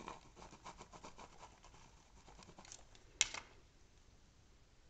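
Faint scratching and tapping of a pen tip on a paper diagram, followed by a single sharp click about three seconds in.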